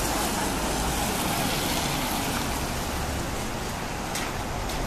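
Steady vehicle engine rumble with a haze of street noise, and two faint clicks near the end.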